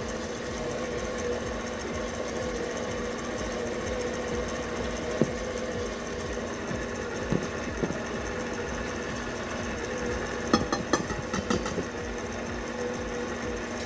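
A wire balloon whisk stirs dry flour and cocoa powder in a stainless steel bowl, with a few light ticks of the wires against the metal, over a steady machine hum. Near the end comes a quick run of sharp metallic taps as the whisk is knocked against the bowl.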